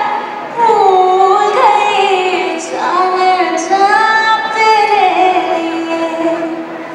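Bollywood song: a woman singing long held notes that slide from pitch to pitch over music. It eases quieter near the end.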